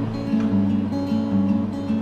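Music: a song led by acoustic guitar, picking a quick run of single notes.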